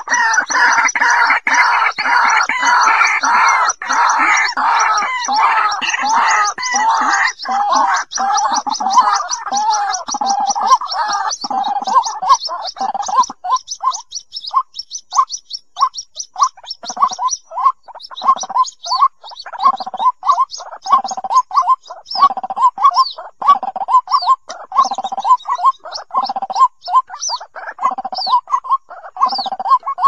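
White-breasted waterhen calling: a dense run of overlapping croaking calls that thins after about twelve seconds into a steady series of separate, evenly repeated notes.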